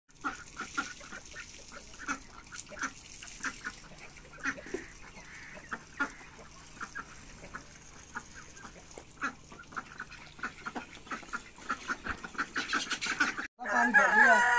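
A flock of white domestic ducks quacking, many short calls in quick succession. The quacking cuts off suddenly about a second before the end, where a louder sound takes over.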